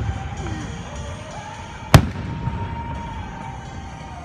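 Fireworks: one sharp, loud bang about two seconds in, over a steady low rumble of other fireworks going off.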